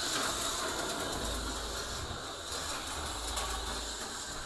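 HO-scale slot car running laps on a plastic track: the steady whir of its small electric motor as it circuits the layout.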